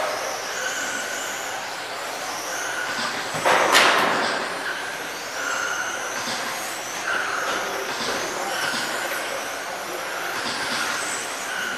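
Several 1/10-scale USGT electric RC cars with 21.5-turn brushless motors racing on carpet: high-pitched motor whines rise and fall as the cars accelerate and slow through the turns, over a steady hiss. A loud sudden knock comes about three and a half seconds in.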